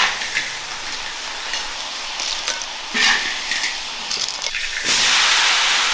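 Clams stir-frying in a large iron wok: a steady sizzle with a metal spatula scraping and clinking against the wok every second or so. Near the end a louder, steady hiss takes over.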